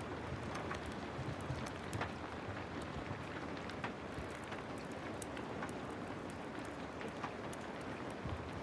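Heavy rain falling steadily, with scattered sharp ticks and crackles throughout.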